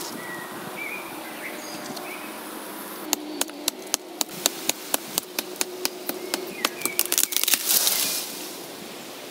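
A machete knocking repeatedly into a small tree trunk in quick light strokes, about three or four a second, for around four seconds in the middle.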